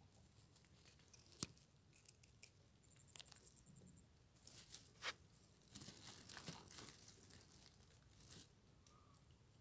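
Faint rustling and crackling of dry soil, litter and roots around a small rodent's burrow, with two sharp clicks in the first few seconds and denser scratchy rustling through the middle.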